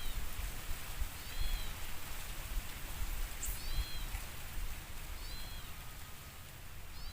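An animal calling outdoors: a short, high, arched call repeated about every one and a half seconds, over a low rumble.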